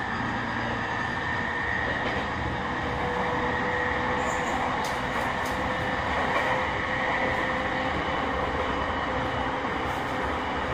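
Sotetsu 10000 series electric train running at steady speed, heard from inside the car: continuous wheel-and-rail rumble with a steady whine from its VVVF inverter and traction motors.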